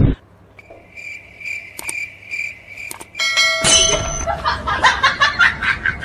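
Cricket chirping, a steady high chirp repeated about twice a second: the comic 'crickets' sound effect of an awkward silence after a joke. About three seconds in it gives way to a short ringing chime and then a louder, rhythmic clatter.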